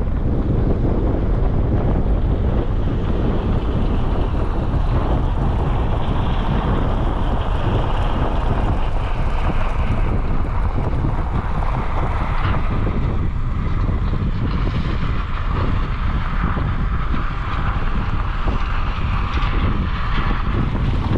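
Heavy wind buffeting the microphone over a steady vehicle or machine rumble.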